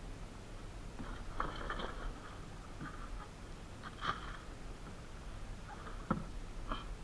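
Fish being picked out of a fishing net in a boat: scattered knocks, taps and rustles of net and fish against the hull and box, the sharpest a click about four seconds in.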